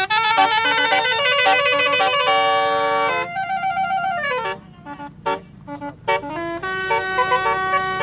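Toyota Fortuner's telolet horn, a set of many air-horn trumpets, playing a tune. It starts with a quick run of staccato notes, then holds chords. One note slides down in pitch about four seconds in, followed by a few short toots and a long held chord near the end.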